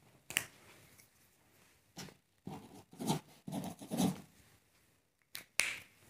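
A pen writing on a sheet of paper on a table: a handful of short scratchy strokes between about two and four seconds in, with a sharp click about half a second in and two more near the end.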